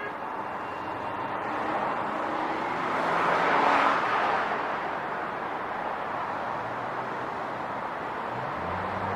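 Street traffic: a vehicle passes by, swelling to its loudest about three and a half seconds in and then fading. A low steady hum comes in near the end.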